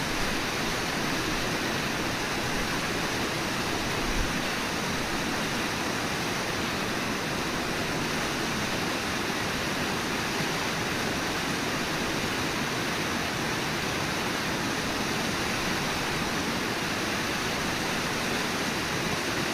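Steady rushing roar of Brooks Falls, the river pouring over the falls.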